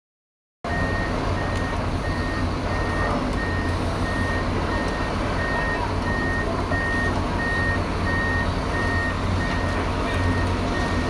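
Excavator travel alarm beeping at an even pace, about three beeps every two seconds, over the steady running of the excavator's diesel engine: the machine is tracking.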